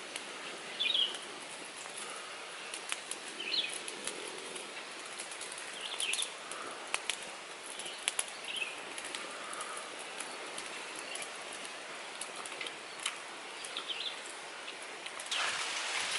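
Small open wood fire crackling with scattered sharp pops over a steady outdoor hiss, with short bird chirps every few seconds. Near the end the hiss grows louder and steadier.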